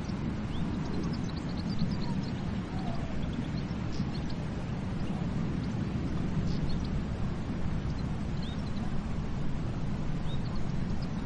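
Ocean surf washing on a beach, a steady low rush, with short high bird chirps scattered through it.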